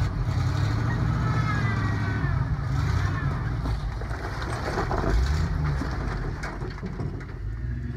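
A motor vehicle's engine running, a steady low rumble.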